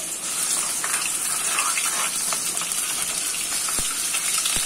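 Ginger-garlic paste sizzling in hot oil in a pan: a steady frying hiss, with a couple of sharp clicks near the end.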